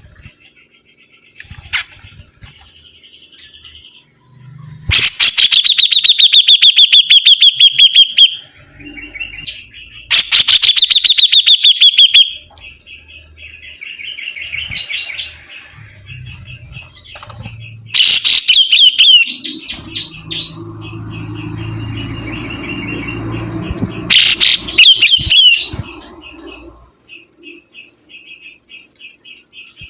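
Sibuntung songbird singing vigorously: loud, rapid trills of repeated notes, four bursts of a few seconds each, with softer chirps between them. A low hum sits underneath in the latter part.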